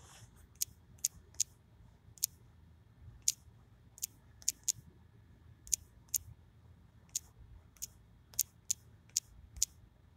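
Typing on a smartphone's on-screen keyboard: about sixteen short, sharp key-tap clicks at an irregular pace.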